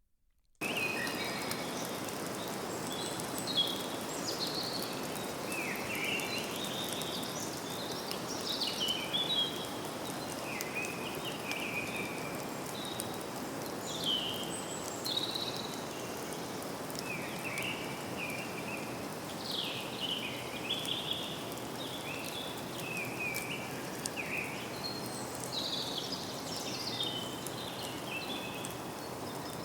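Forest ambience: many birds chirping and calling over a steady background hiss, starting abruptly about half a second in.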